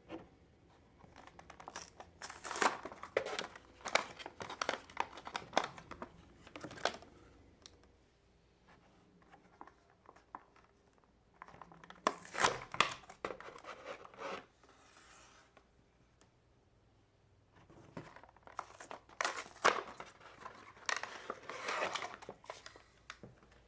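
Plastic and cardboard toy packaging being handled and torn open, in three bouts of crinkling and tearing with short pauses between.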